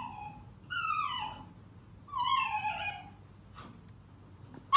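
Shiba Inu crying out in protest while its paw is handled on a grooming table: three whining wails, each sliding down in pitch, about a second apart.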